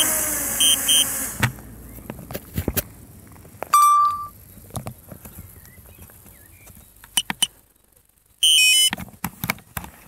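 DJI Spark drone's propellers running down and stopping a second or so after landing, with short electronic beeps over them. Then scattered clicks, one loud beep about four seconds in, and a loud half-second chirping alert near the end.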